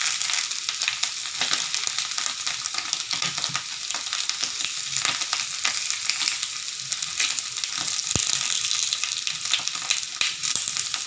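Slices of tempeh sizzling and crackling as they fry in a pan, with a single sharp click about eight seconds in.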